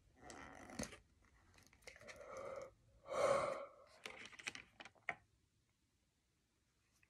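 A person breathing out heavily three times, the strongest about three seconds in, followed by a few light clicks of small plastic toiletry items being handled; then the sound drops to dead silence for the last second and a half.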